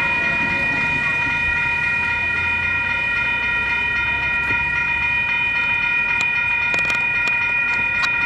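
Railroad grade-crossing warning bell ringing without a break, a steady cluster of bright tones, over the low rumble of an approaching locomotive.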